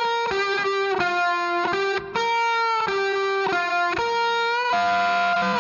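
Background music: a single-note guitar melody, one held note after another.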